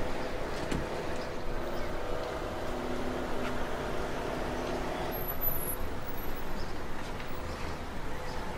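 Bugatti Chiron's quad-turbocharged W16 engine idling steadily.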